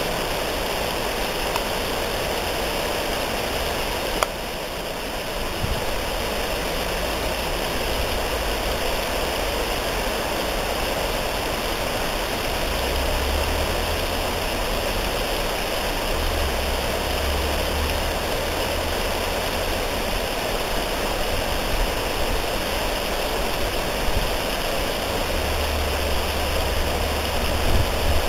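Steady, even rushing background noise outdoors, with low rumbles coming and going and a single click about four seconds in.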